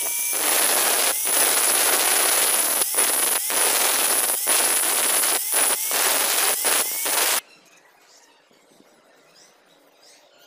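Angle grinder grinding the rusty steel face of a hammer head down to bright metal: a harsh rasp over a steady high whine that breaks off briefly several times as the disc is lifted, then stops suddenly about seven seconds in.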